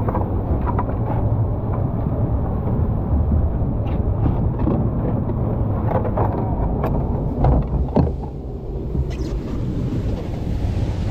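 Rushing river water, muffled, with scattered knocks and splashes; the sound turns clearer about nine seconds in.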